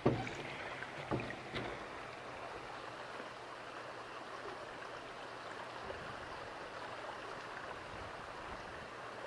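Mountain river rushing steadily beneath a footbridge, an even wash of flowing water. There are a couple of faint knocks in the first two seconds.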